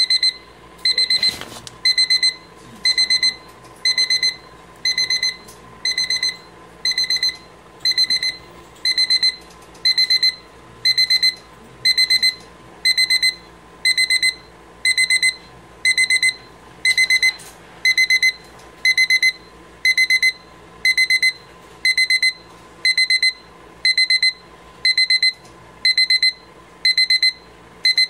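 Rhythm desk alarm clock's alarm sounding: a high-pitched, rapidly pulsing beep in short bursts about once a second, repeating steadily. A brief click about a second in.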